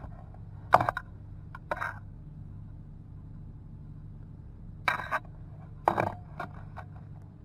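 Several sharp metallic clinks and knocks from handling a stainless steel yerba mate cup with its metal bombilla and a thermos, loudest about a second in and around six seconds, with a few lighter ticks near the end. A steady low hum runs underneath.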